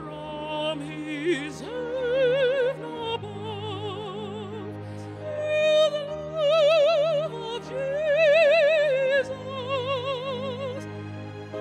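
A woman singing solo into a microphone, long held notes with a wide vibrato, over low held accompaniment chords that change every few seconds.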